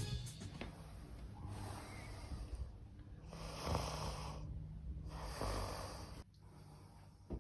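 A sleeping man snoring: three long, rough breaths about a second and a half apart, stopping about six seconds in. A short click near the end.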